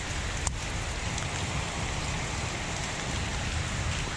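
Steady rain falling on shallow water running over a paved path, an even hiss with no breaks.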